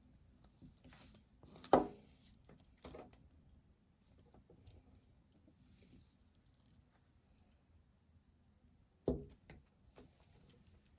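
Unboxing handling sounds: packaging rustling in short spells, with small clicks and two sharper knocks, about two seconds in and again about nine seconds in.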